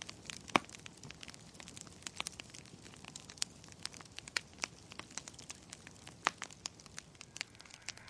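Wood fire crackling, with sharp irregular pops from burning logs in a cast-iron wood stove, the loudest about half a second in.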